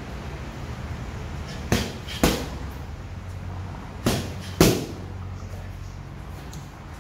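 Boxing gloves hitting a trainer's pads in two quick one-two combinations. The two punches in each pair land about half a second apart. The first pair comes a little under two seconds in, the second a little after four seconds.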